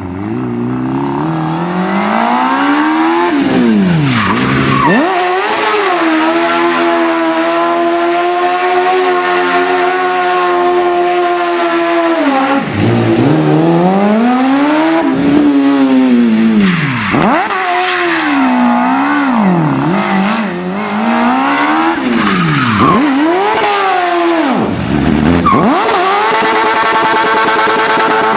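Suzuki Hayabusa inline-four motorcycle engine in a Smart car revving hard, its pitch climbing and dropping sharply again and again as the throttle is worked, held high for stretches, with tyres squealing as the car drifts.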